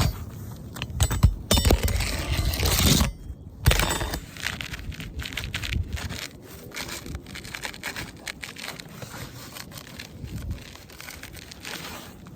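Rough scraping of roof shingles being worked over, loud for the first three seconds or so, then a long run of small crackles and taps. The shingles are brittle.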